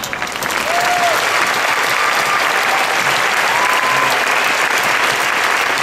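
An audience and the people on stage clapping: the applause swells within the first second and then holds loud and steady, with a few short calls from voices over it.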